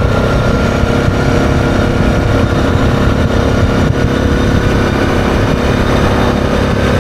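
ATV engine running at a steady cruising speed, its pitch holding level, under heavy low wind rumble on the microphone from riding.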